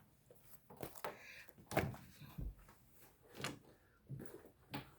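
Faint handling noises: a scattering of soft clicks, knocks and rustles as small bag accessories are picked up, moved and set down.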